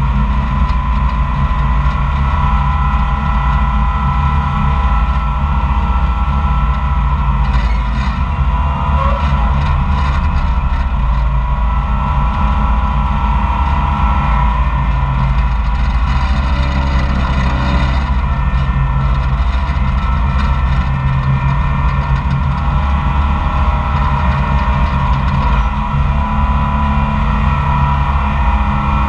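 Koehring 440 dragline's engine and drum machinery running steadily under load while the bucket is dragged in and hoisted, a low engine note with a steady whine above it.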